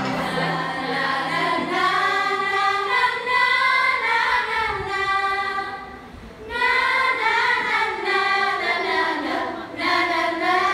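Several voices singing together in a choir-like song, with a short break in the singing about six seconds in before it resumes.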